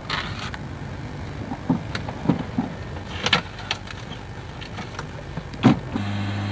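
Handling noises inside a light aircraft's cabin: scattered clicks, knocks and rustling over a low background rumble, with the sharpest knock near the end. In the last half second a steady low hum sets in.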